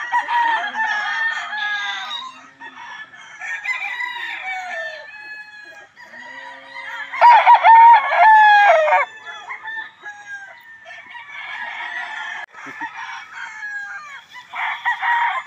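Roosters crowing one after another, the loudest a long crow about seven seconds in from the white gamecock, with fainter crows from other cocks before and after it.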